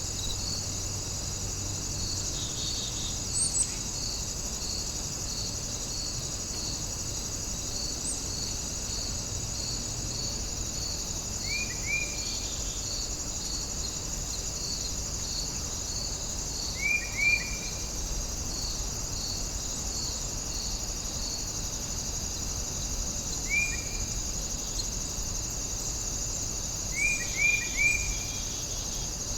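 Night insect chorus: crickets chirping evenly about twice a second over a steady high-pitched insect drone. A few short rising calls, in twos and threes, stand out louder about a third of the way in, past the middle and near the end.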